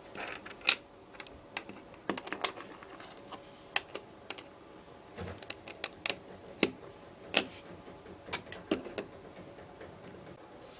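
Plastic LEGO bricks being handled and pressed together: irregular sharp clicks and clacks, some much louder than others.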